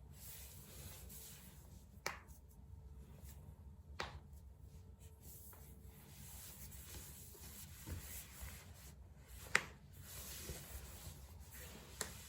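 A person cracking their own joints: four sharp pops about two, four and nine and a half seconds in and again near the end, the third the loudest, with a fainter one just before it. Soft rubbing of hands and clothing runs between the pops.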